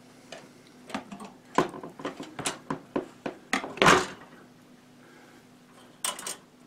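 Steel body-grip trap clinking and knocking against a wire dipping stick and the side of a plastic tub as it is flipped over in trap dip. A run of light clanks, the loudest about four seconds in, and a short cluster of clanks near the end.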